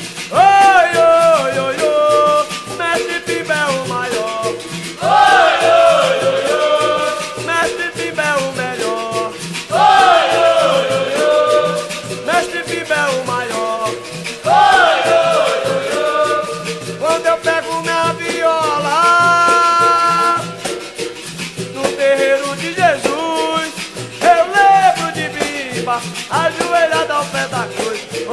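Capoeira song: a singer over a steady percussion rhythm, with sung phrases starting about every five seconds.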